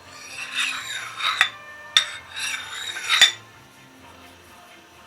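Splitter blade drawn along a flat butcher's steel: two scraping metal-on-metal strokes, each ending in a sharp clink, to take the burr off the edge.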